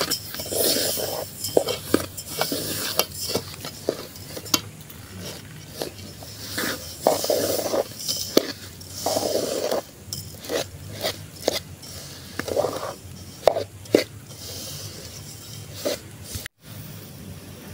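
A metal spoon stirring roasted sesame seeds through melted sugar in a stainless steel saucepan: scraping swishes of the seeds with many sharp clicks of the spoon against the pot.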